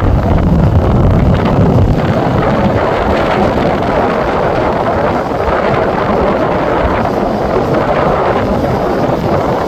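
Strong hurricane wind buffeting the microphone over heavy surf, a steady rushing noise with a heavier low rumble of gusts in the first two seconds.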